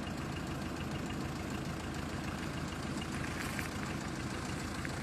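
A motor vehicle's engine running steadily with an even low rumble.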